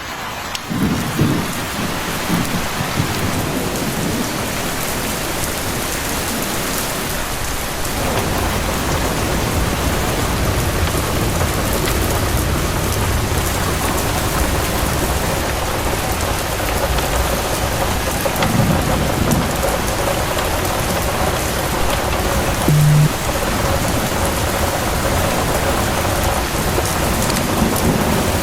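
Heavy rain falling steadily, with low rumbles of thunder near the start and again about two-thirds of the way through. A brief low tone sounds once near the end.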